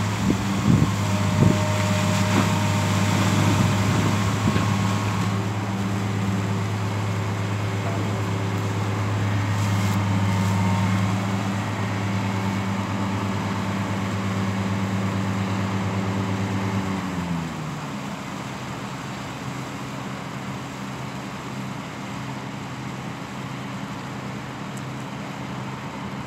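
Hitachi Zaxis 470 LCH excavator's diesel engine running steadily at working revs. Over the first few seconds water pours and splashes from the raised bucket, with a couple of sharp knocks. About 17 s in, the engine note drops as it falls back to lower revs.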